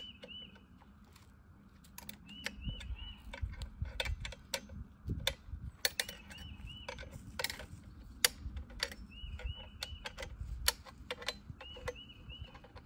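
Metal clicks, knocks and ratcheting of an Alaskan chainsaw mill being reset by hand, its rails moved down to a new cutting height; the chainsaw is not running. A bird repeats a short three-note chirp about every three seconds.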